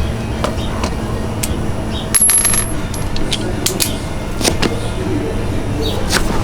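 Metal tools clinking and clicking while a scooter is being reassembled, sharp scattered clinks with a denser cluster and a brief metallic ring about two seconds in, over a steady low background hum.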